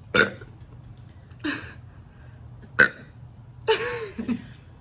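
A young woman burping after gulping ginger ale: short burps about a second apart, four in all, the last one longer with a falling pitch.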